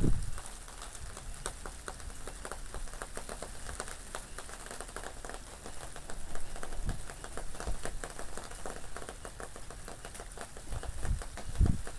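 Steady rain with many separate drops clicking on a surface, and low gusts of wind swelling at the start, about seven seconds in and near the end.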